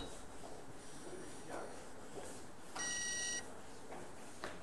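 A single electronic beep, one steady tone held about half a second, a little past the middle. Faint clicks of billiard balls are heard before and after it.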